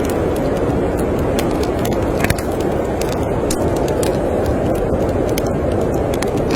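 Steady low rush of snowstorm wind, with the scattered small pops and crackles of a wood fire burning in a fireplace.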